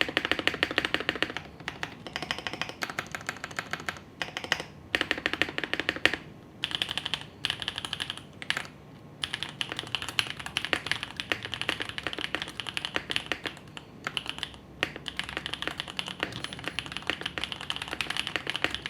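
Swagkeys Eave65 polycarbonate mechanical keyboard, foam-filled, with Gateron Raw switches, GMK Nautilus keycaps and TX stabilizers, typed on quickly in a typing sound test. The keystrokes are clacky and poppy, in fast runs broken by a few short pauses.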